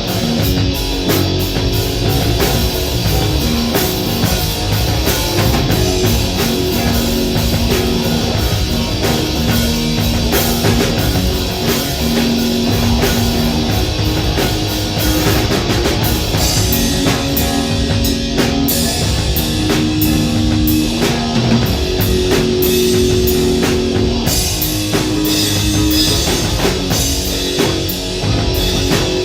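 Live heavy rock band playing with distorted electric guitars and a drum kit, the guitars holding long sustained notes over steady drumming.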